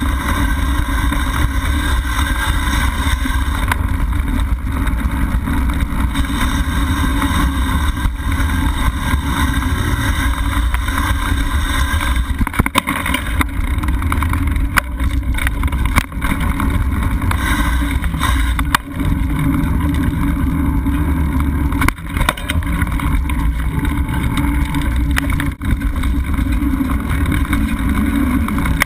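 Mountain bike rolling over dirt singletrack, heard from a camera mounted on the bike: steady wind buffeting on the microphone over the rumble and rattle of tyres and frame, with a handful of sharp knocks from bumps in the trail.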